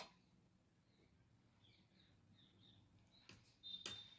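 Near silence: room tone, with a few faint high chirps in the middle and two short sharp clicks near the end.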